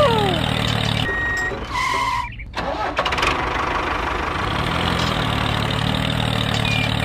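Tractor engine running steadily at idle. It fades about a second in and cuts out briefly near two and a half seconds, then runs on steadily.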